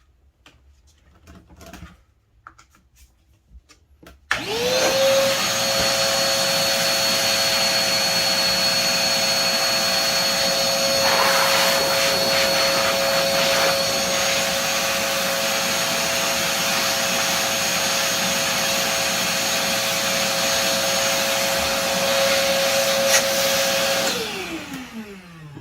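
Koblenz 2.5-gallon wet/dry vacuum run as a blower. After a few faint handling clicks it switches on about four seconds in and spins up to a steady high whine with a loud rush of air. It runs for about twenty seconds, then is switched off near the end, its pitch falling as the motor winds down.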